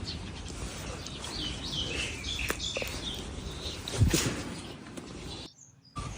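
Short high bird chirps over a steady outdoor background noise, with a dull thump about four seconds in. The sound cuts out briefly near the end.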